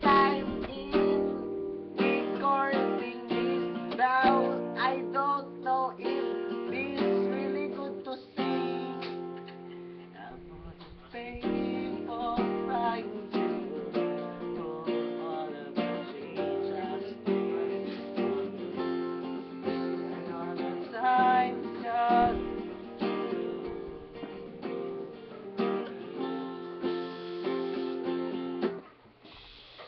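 Acoustic guitar played with chords strummed and single-note melodic picking over them, the playing stopping abruptly near the end.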